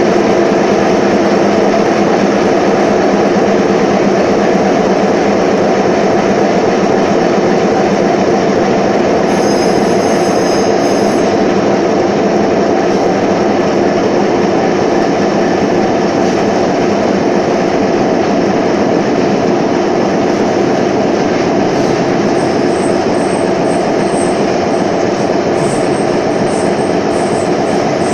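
Concrete pile production machinery running continuously: a loud, steady rumbling drone with several steady tones and a metallic, rolling, rail-like quality, unchanging throughout.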